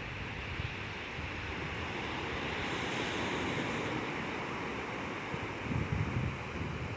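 Sea surf washing steadily, a continuous wash of waves, with brief low wind buffeting on the microphone about six seconds in.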